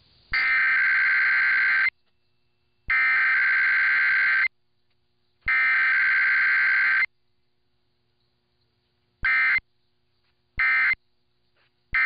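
EAS SAME digital header heard over AM radio: three harsh, buzzy data bursts of about a second and a half each, a second apart, followed near the end by three much shorter bursts of the same data tones.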